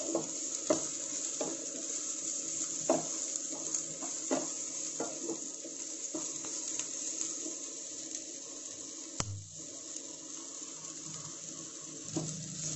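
Chopped garlic, ginger and onion sizzling gently in a little mustard oil in a nonstick frying pan, stirred with a wooden spatula that scrapes and knocks against the pan every second or so, over a steady hum.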